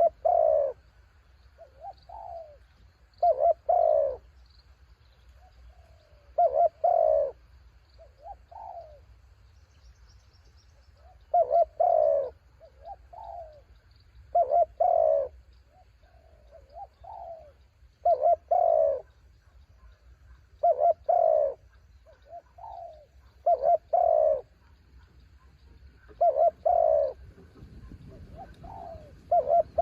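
Spotted doves cooing: loud paired coos repeat about every three seconds, with fainter coos between them.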